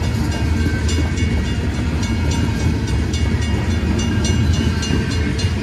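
Freight cars of a long CSX manifest train rolling past: a steady low rumble with frequent short clicks of wheels on the rails and thin, steady high-pitched squeal tones.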